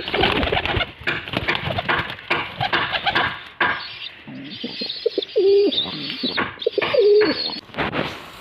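Domestic pigeons cooing in a loft, two low coos about five and seven seconds in, after busy rustling and clicking in the first half.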